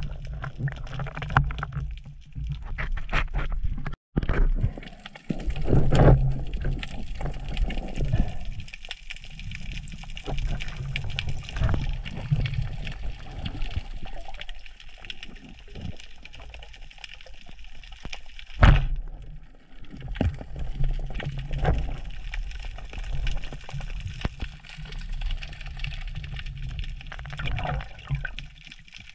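Water noise heard through an underwater camera housing as a spearfisher swims: a low rumble with sloshing water and scattered clicks and knocks, one sharp knock a little past halfway.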